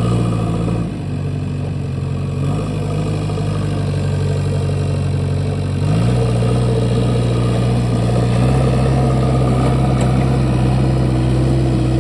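JCB backhoe loader's diesel engine running steadily. Its speed dips about a second in, then picks up in steps, around two and a half and six seconds in.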